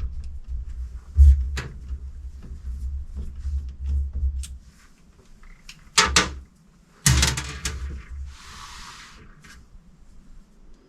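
Scattered knocks and clatter of tools and metal parts being handled while an Audi SQ7's Valeo electric supercharger is taken apart, with two louder clattering impacts about six and seven seconds in, followed by a brief hiss.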